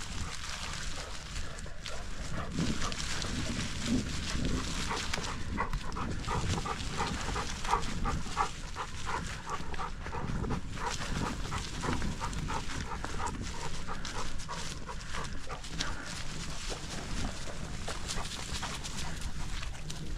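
A dog making rapid, repeated short sounds, a few a second, most of the time, over a steady low rumble.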